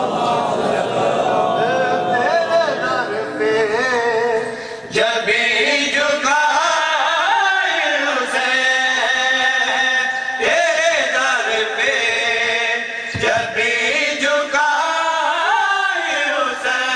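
Congregation chanting the salawat together in loud voices. The recitation comes as several phrases in a row, with short breaks between them.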